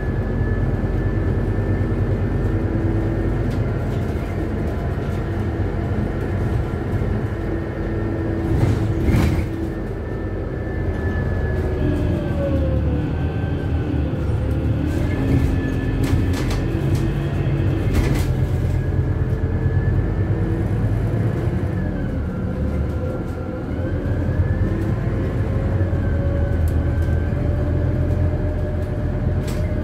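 Ride noise inside a Scania CityWide LF CNG 12 low-floor city bus under way: the low rumble of its natural-gas engine and running gear with a steady whine on top. The whine's pitch falls and rises again twice, about a third of the way in and again past the two-thirds mark, as the bus's speed changes. A few sharp rattles or knocks come from the body, one just before halfway.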